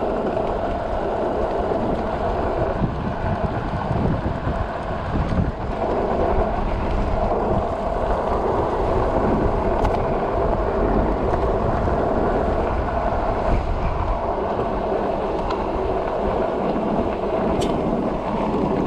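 Wind rushing over an action camera's microphone while riding an electric bike, with steady road and tyre noise underneath.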